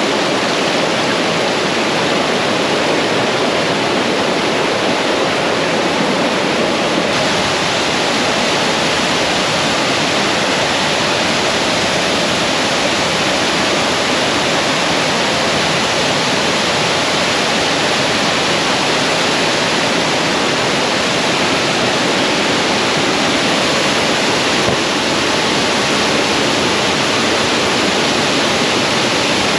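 Waterfall pouring, a steady loud rush of falling water with no breaks.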